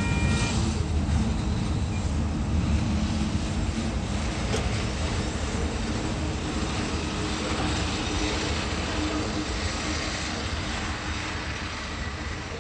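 Coal train hopper wagons rolling away on the track, their steady rumble slowly fading. A level-crossing warning bell's tone cuts off about half a second in.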